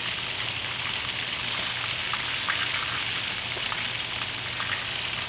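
King mackerel steaks shallow-frying in hot oil in a pan: a steady sizzle with scattered crackling pops.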